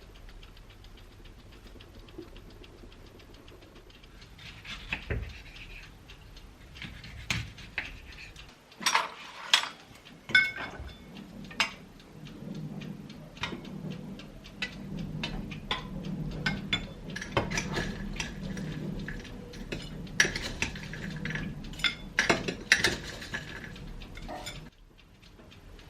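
Kitchen work: dishes and utensils clinking and knocking, a series of separate clicks and taps, a few of them ringing briefly, over a low steady hum.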